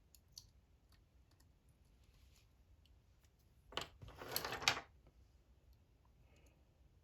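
Faint small clicks of handling, then a sharp click and a short scratchy rustle about four seconds in: a stencil or masking being pulled off a freshly airbrushed crankbait.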